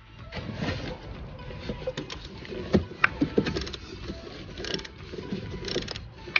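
Socket ratchet clicking in short uneven runs, with a few metallic knocks, as a new oxygen (lambda) sensor is tightened into the exhaust.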